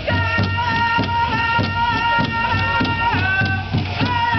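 Powwow drum group singing high, held notes together over a steady beat on a big hand drum. The pitch of the song steps down about three seconds in.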